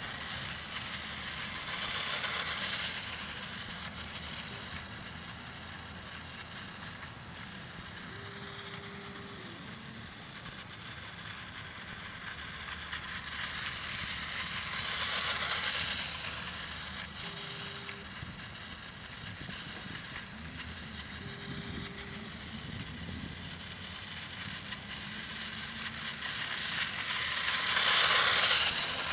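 Battery-powered TOMY Plarail Eurostar toy train running on plastic track, its small motor and wheels growing louder three times as it passes close by, loudest near the end, over a steady low background rumble. A few brief steady low tones sound in the middle.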